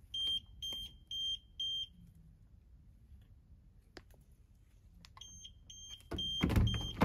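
Hotel door's electronic key-card lock beeping, four short high beeps in a row, then four more a few seconds later as the card is held to the reader again: the repeated beeping is the lock rejecting the card. A louder clunk at the door comes under the second set of beeps.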